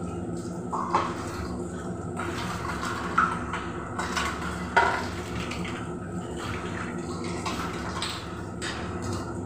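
Metal kitchen utensils clinking three times, sharply, over a steady background hum; the third clink, just under five seconds in, is the loudest.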